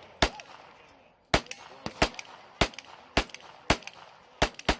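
Gunfire: about eight sharp single shots, most of them about half a second apart, after a brief pause near the one-second mark, each followed by a short echo.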